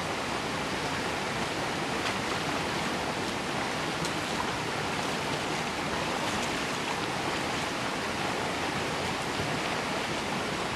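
Creek water flowing and rushing around the listener, a steady, even rush.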